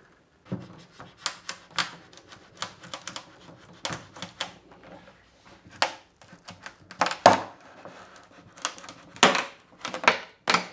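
Glue joint between a cello's top and ribs cracking open as a thin butter knife is worked into the seam: a run of sharp, irregular clicks and snaps, several a second, some much louder than others.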